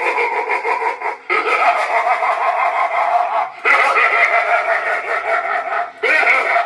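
Halloween animatronic's built-in speaker playing recorded creature growls and screeches in long, rasping stretches of about two seconds each, broken by short gaps.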